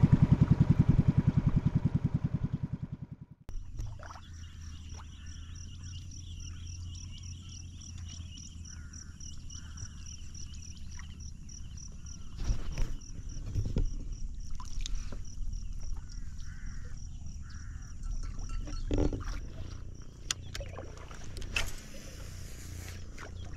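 A boat engine running with a fast, even pulse, slowing and dying away to a stop about three seconds in. After that comes calm lakeside quiet: a low hum, a thin steady high tone, short repeated bird calls, and scattered knocks and clicks.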